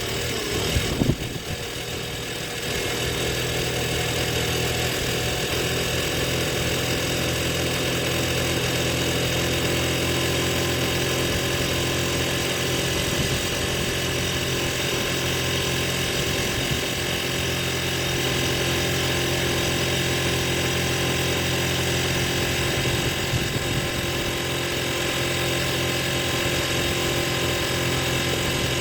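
An old quad's (ATV's) engine idling steadily, just brought back to life after sitting unused for a long time. A few knocks come in the first couple of seconds before the idle settles.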